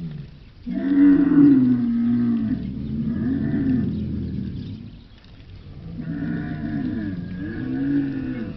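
Cattle mooing: a series of long, low moos, each with a pitch that rises and falls.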